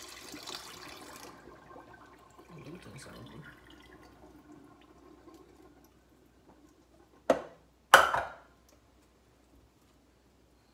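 Rinse water poured off mustard greens from a stainless steel pot into the sink, trailing off after about a second, then faint handling of the wet leaves. Past the middle, two sharp knocks in quick succession are the loudest sounds.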